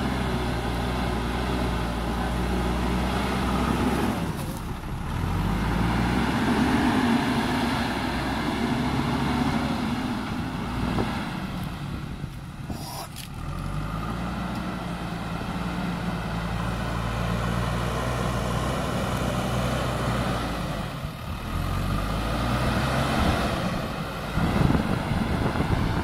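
JCB backhoe loader's diesel engine running under load as the front bucket pushes and lifts soil. The engine revs up and eases off several times, its pitch rising and falling.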